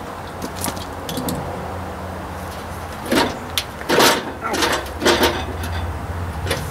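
Metal clanks and rattles of bolts, washers and hand tools as sheet-metal hood panels are fitted, in a short cluster about three to five seconds in, over a steady low hum.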